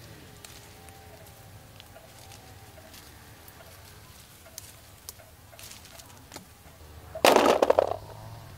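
Small scattered snaps as plums are picked off the branches, then, about seven seconds in, a loud clattering rattle lasting under a second as a handful of plums drops into a woven bamboo basket.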